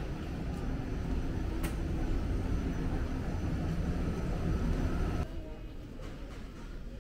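Randen tram (Keifuku Arashiyama Line) pulling into the station platform: a steady low rumble of wheels and motors that cuts off suddenly about five seconds in, leaving quieter outdoor ambience.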